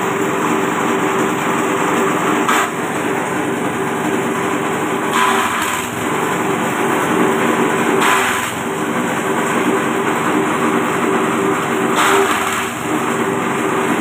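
Small 5.5 hp engine running a JG350 grass chopper steadily at speed, with a brief surge of chopping noise four times, roughly every three seconds, as bundles of corn stalks are fed into the blades.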